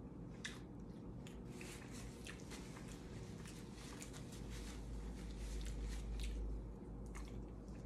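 Close-miked mouth sounds of a person chewing a mouthful of lasagna: many small wet clicks and smacks, with a low rumble for a couple of seconds past the middle.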